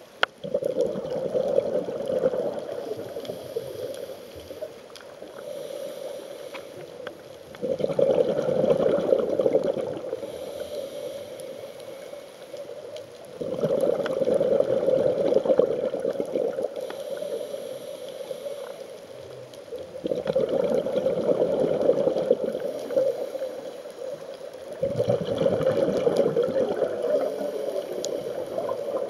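Scuba regulator exhaust bubbles heard underwater: five long bubbling rushes, each two to three seconds long, coming about every six seconds, with quieter breathing between them. A single sharp click right at the start.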